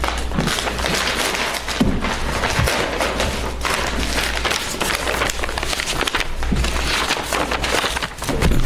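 Paper folders and envelopes being handled on a table close to the microphone: steady rustling with occasional thumps as they are set down, over a low hum.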